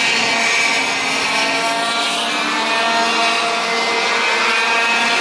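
Several ROK Senior racing karts' 125cc two-stroke engines buzzing as they race through the corners, their overlapping pitches gliding up and down as the drivers lift and accelerate.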